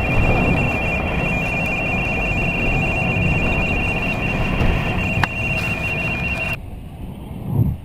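A high-pitched electronic tone pulsing rapidly on two close pitches, over a steady low rumble. Both cut off suddenly about six and a half seconds in.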